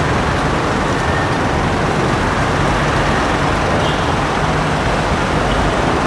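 A bare bus chassis's diesel engine running steadily, under an even wash of road noise.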